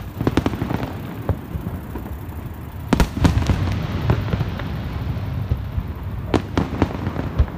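Aerial fireworks bursting: sharp bangs coming in clusters, the loudest group about three seconds in and another near the end, with a low rumble between them.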